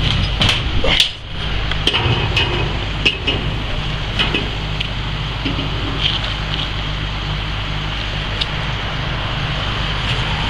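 Heavy machinery running with a steady low drone, with several sharp metallic knocks and clanks in the first few seconds.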